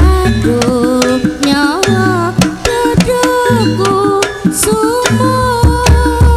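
Jaranan gamelan accompaniment: rapid kendang hand-drum strokes and deep low strokes under a melody line that steps and bends between notes, over tuned percussion.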